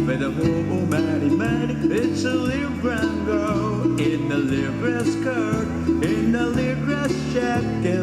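Hawaiian-style hula music: guitar-led accompaniment with plucked strings under a melody line that glides and wavers in pitch.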